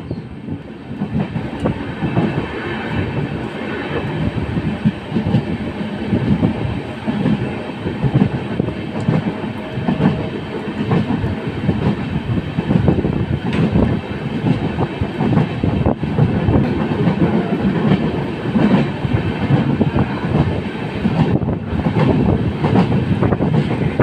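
Passenger train running at speed, heard from an open coach doorway: a loud, steady rumble of the wheels on the rails with a constant clatter running through it.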